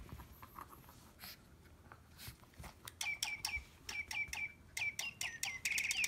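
Battery-powered toy bird chirping: a run of short electronic tweets, each sliding quickly down in pitch, starting about halfway through at about four a second and closing in a quick trill near the end.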